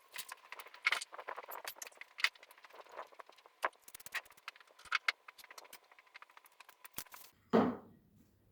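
Rapid, irregular clinks and rattles of small hard items being handled and put away while a shop is cleaned up, with a louder, fuller sound about seven and a half seconds in.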